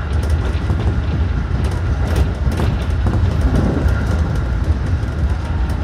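JR 211 series 5000 electric train running steadily at speed, heard from inside the front car: a continuous low rumble of wheels on rails, with scattered sharp clicks.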